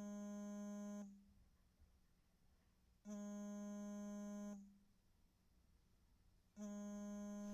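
A faint, steady electronic buzzing tone, held for about a second and a half at a time and repeating at even intervals about three and a half seconds apart.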